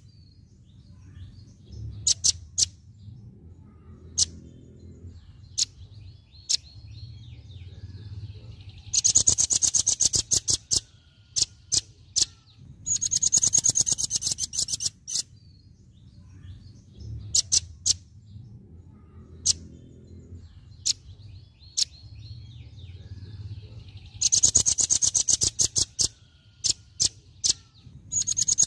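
Velvet-fronted nuthatch singing its rapid 'tembakan' song: three loud, very high bursts of fast, sharp, machine-gun-like notes, each about two seconds long, with single sharp chips between them. A fourth burst begins near the end.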